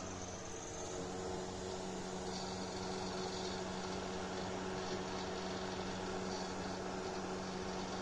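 Ningbo Singfun electric space heater running: a steady hum over an even hiss.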